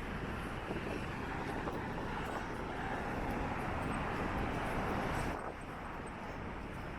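Street traffic noise of a vehicle passing close by, a steady rushing sound that cuts off suddenly about five seconds in.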